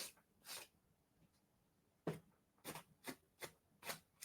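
Near silence, broken by about seven faint, short clicks.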